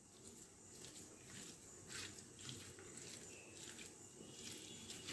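Faint wet squelching and crackling of a hand squeezing and mixing a mustard and poppy-seed paste with sliced onions and green chillies in a steel bowl, in small irregular squishes.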